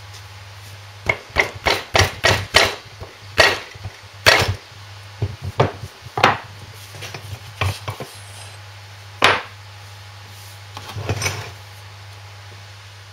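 Mallet blows on a Lister D engine's crankshaft assembly. A quick run of sharp knocks comes first, then lighter scattered taps, one single blow and a short final cluster.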